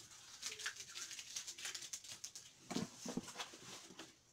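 Cardboard shipping box being handled and its packing tape picked at and pulled: a run of small scrapes and crinkles, with a few heavier knocks about three seconds in.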